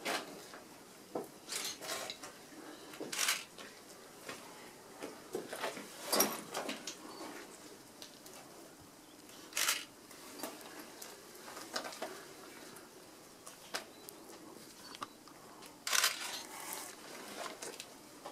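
Low background with scattered short rustles and knocks, about half a dozen louder ones spread irregularly through it.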